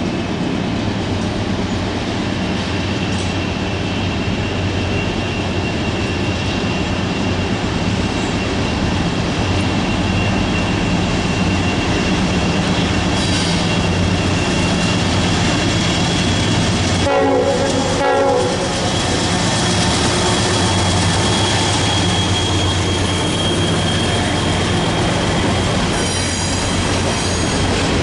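Norfolk Southern diesel-electric locomotives running past, their engines a steady low drone that grows a little louder as they come by, over a thin high wheel squeal. A short horn blast sounds about two-thirds of the way through. Near the end the empty coal hoppers follow, their wheels clicking over the rail joints.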